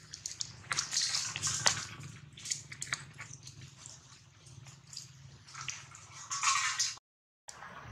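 Thin plastic water bottle crinkling and clicking as a monkey handles it, with water sloshing inside. Near the end comes a denser spell of crackling as the monkey drinks from the bottle, then the sound cuts out briefly.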